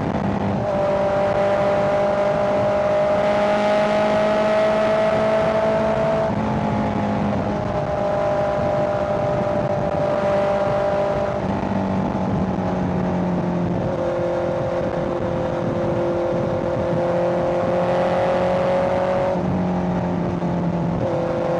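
Honda CBR650R inline-four engine running under way, heard from the rider's seat. Its pitch climbs slowly and then steps to a new level several times, around 6, 11, 14 and 19 seconds in, as the throttle or gear changes.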